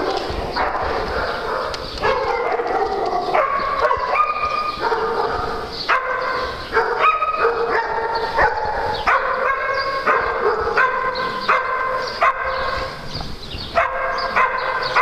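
Background music: a melody of short held notes stepping up and down several times a second, in a dog-like barking voice.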